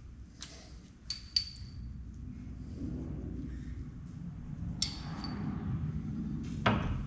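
A steel breaker bar and socket clinking as they are fitted onto a truck engine's cylinder head bolts: a few sharp metal clinks with short ringing pings in the first couple of seconds and again about five seconds in, then a louder knock near the end, over a low steady hum.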